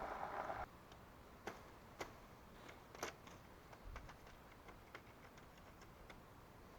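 A loud rush of noise that cuts off suddenly within the first second, then a few faint, irregular sharp clicks and ticks over quiet background.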